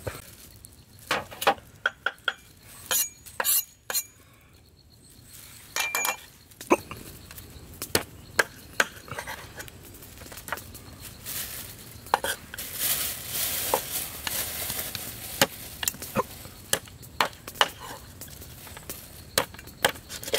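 Irregular clinks and knocks of utensils and cookware during food preparation, with a few seconds of hiss a little past the middle.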